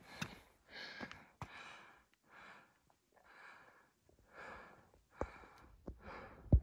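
A person breathing heavily close to the microphone, about one breath a second, with a few faint clicks in between.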